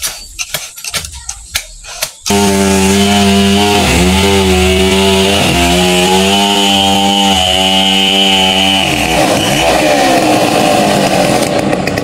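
Chainsaw engine starting suddenly about two seconds in and then running hard while cutting a coconut palm trunk, its note dipping briefly twice as the chain bogs in the cut and turning rougher near the end. A few sharp knocks come before it.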